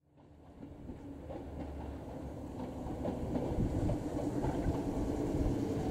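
JR Shikoku 121 series electric multiple unit approaching a station: a low rumble of wheels on rail with occasional clicks over rail joints. It fades in at the start and grows steadily louder as the train nears.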